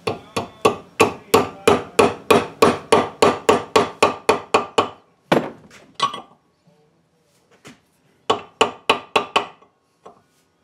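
Hammer tapping a new brass bushing into a 1963 Chevy truck door hinge: a fast run of light ringing metallic taps, about four a second, for some five seconds. Two more taps and a pause follow, then another quick run of about six taps.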